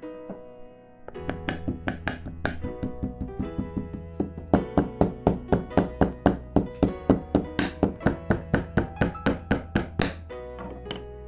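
Wooden rolling pin beating a beef steak flat under plastic wrap on a wooden board: quick, even thuds about four a second, louder from about halfway, stopping near the end. Piano music plays under it.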